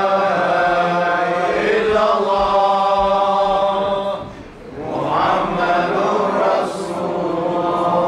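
Men's voices chanting Arabic devotional recitation in long, drawn-out melodic phrases, with a short break about four and a half seconds in.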